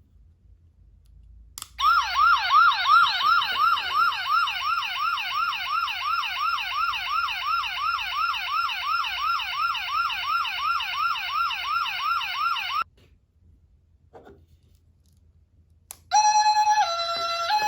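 Toy patrol siren lamp clicked on, giving a fast electronic wailing siren of about three rising-and-falling sweeps a second, which cuts off abruptly after about eleven seconds. Near the end, after another click, it starts a stepped two-tone electronic pattern.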